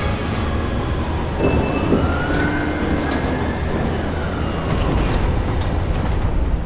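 Dense storm noise with a low rumble, and a siren wailing slowly down, then up and down again, over it.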